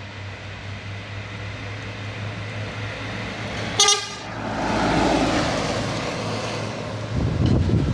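Laden truck's diesel engine approaching and passing close, its hum growing louder, with one short horn toot as it reaches the microphone about four seconds in. The engine and tyre noise swell and fade as it drives away, and wind buffets the microphone near the end.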